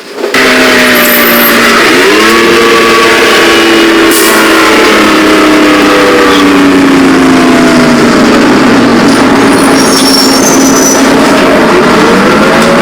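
A motor vehicle engine running loud; its pitch rises sharply about two seconds in, falls slowly over the next several seconds, then rises again near the end.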